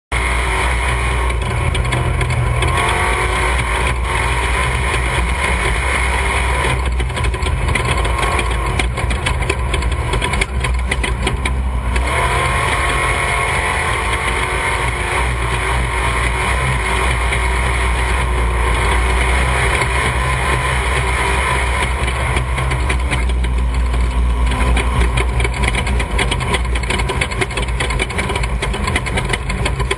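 Off-road desert race vehicle's engine running continuously at a fairly even level, mixed with a steady rush of noise.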